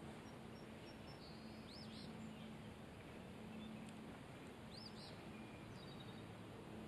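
Faint outdoor background hiss with small birds calling: two quick pairs of high, rising-and-falling chirps, about two and five seconds in.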